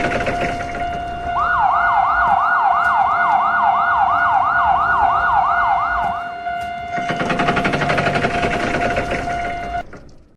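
Electronic siren-style alarm sound effect: a steady high tone with a fast pulsing buzz over it at the start and again later on. In the middle comes a run of quick rising yelps, nearly three a second. The whole thing cuts off suddenly just before the end.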